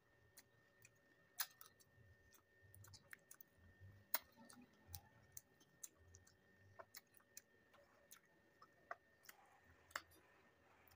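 Faint eating sounds: quiet chewing with irregular sharp mouth clicks and smacks, the loudest about a second and a half and four seconds in.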